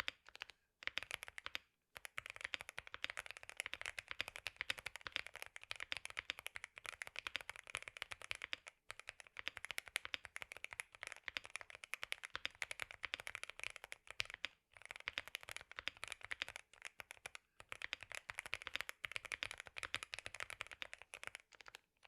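Mechanical keyboard with Akko Dracula linear switches being typed on fast: a dense, even clatter of keystrokes, broken by a few short pauses.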